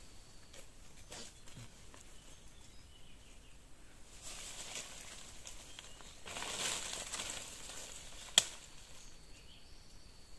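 Leaves and branches rustling as a shrub's branches are handled, in two swells a few seconds apart, with a single sharp snap or click near the end.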